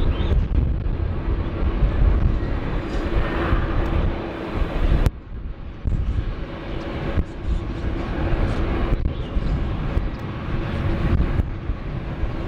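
Jet airliner engines running at taxi idle: a steady low rumble with a faint steady hum. The sound drops abruptly about five seconds in, then picks up again.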